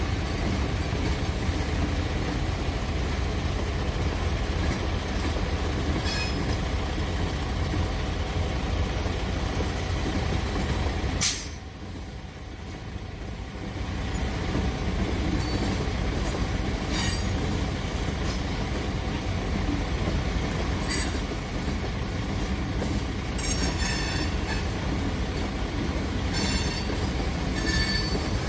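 Freight train passing: a steady low rumble of rolling cars, with short high-pitched wheel squeals several times, mostly in the second half. About a third of the way in a sharp click is followed by a few seconds where the rumble drops away before it builds back.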